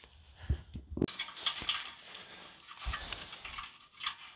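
Irregular handling noises at a motorcycle's exhaust mounting bolts: scattered clicks and scraping, with a sharp knock about a second in and another thump near three seconds in.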